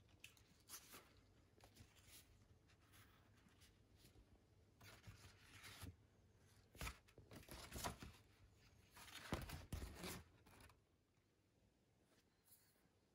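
Faint rustling of large houseplant leaves brushed and handled by hand, in a few short scratchy bursts, the loudest about nine to ten seconds in, between stretches of near silence.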